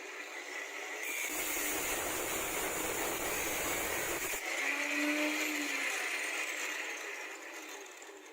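A power tool running with a steady grinding whirr, swelling over the first couple of seconds and fading away near the end.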